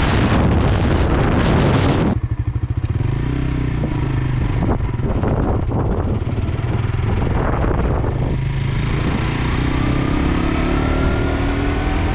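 Wind noise on the helmet microphone, which cuts off about two seconds in, leaving a Suzuki GSX-R sport bike's engine running at low speed. Near the end the engine note rises as the bike accelerates.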